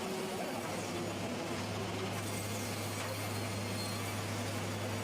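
Sawmill machinery running with a steady mechanical noise. A low, even hum comes in about one and a half seconds in.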